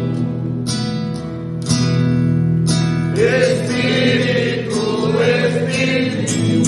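Music: a song over steadily strummed guitar chords, with a singing voice coming in about three seconds in.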